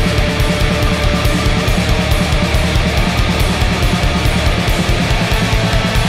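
Black metal: dense distorted guitar and bass over fast, steady drumming.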